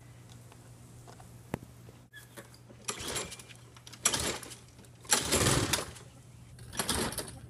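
Recoil pull-starter of a Briggs & Stratton lawn mower engine being yanked four times, a rasping whirr with each pull about a second apart, the third the longest and loudest. The engine, primed with starter fluid, cranks but does not start.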